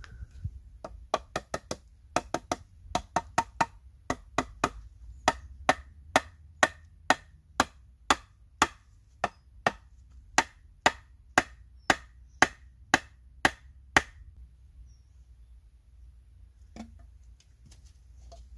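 A hatchet striking a wooden pole again and again with sharp wooden knocks. The first blows come in quick uneven clusters, then they settle to a steady beat of about two a second and stop about 14 seconds in. A few faint knocks follow near the end.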